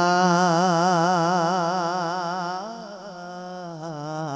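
A male voice singing a naat into a microphone, holding a long drawn-out note with a wide, even vibrato. About two and a half seconds in the note eases off and turns, and near the end it swells into another wavering held note.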